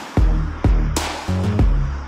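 Electronic background music with a steady beat: deep bass notes and kick drums, with a sharp snare-like hit about a second in.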